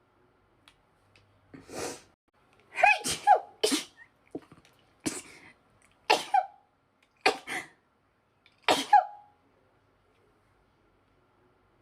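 A woman's sneezing fit: a rapid run of about half a dozen loud, voiced sneezes, several coming in quick pairs, with a softer intake of breath before the first.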